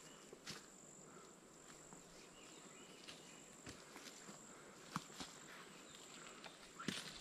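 Quiet forest ambience: a steady high-pitched insect drone with a few faint footstep clicks on the trail.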